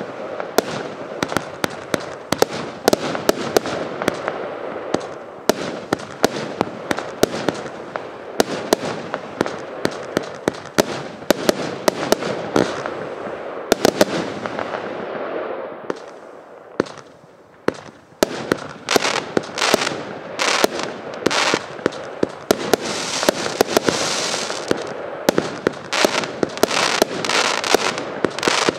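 Sturdy 2 The Max 100-shot compound firework cake (25 mm tubes) firing shot after shot in quick succession: sharp launch and burst bangs over a dense, steady crackle. The firing thins out for a couple of seconds a little past the middle, then picks up again with heavier crackling.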